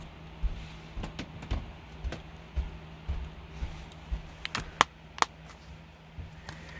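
Plastic Blu-ray case being handled: a run of soft knocks and clicks, with a few sharper clicks about four and a half to five seconds in as the open case is snapped shut. A faint steady low hum runs underneath.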